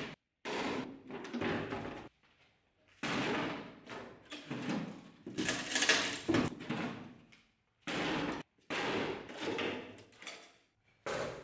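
Bardiche axe blade hacking repeatedly into cardboard boxes and plywood panels: about ten sharp chopping hits, with splintering and pieces clattering onto the bench. The loudest hit comes about six seconds in.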